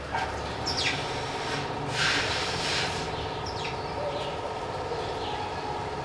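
House sparrows chirping: a few short, separate, downward-sliding chirps. A short rushing noise comes about two seconds in, over a steady hum in the background.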